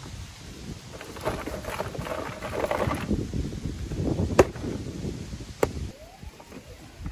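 Ice cubes and cans rattling and clattering as a hand rummages through a plastic cooler and pulls out a drink can, followed by a sharp knock about four seconds in and a lighter click a second later.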